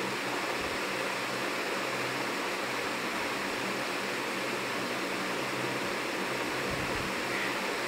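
Steady, even outdoor background hiss with a faint low hum underneath and a few soft low bumps.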